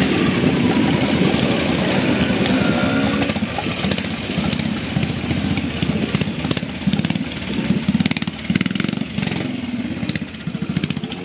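Classic trials motorcycle engine running at low revs, its note rising and falling as the bike is picked down a muddy bank and along a shallow rocky stream. Sharp clicks and knocks come in the second half.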